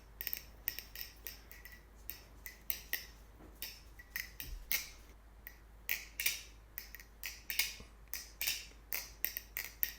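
Baliplus BRS Replicant balisong (butterfly knife) being flipped: irregular crisp clicks of the handles and blade knocking together as it opens and closes, a sound described as crunchy.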